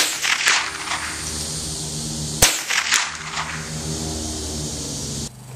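Two shots from a 1948 Winchester Model 74 .22 LR semi-automatic rifle, about two and a half seconds apart, each a sharp crack followed by echoes that die away within about a second.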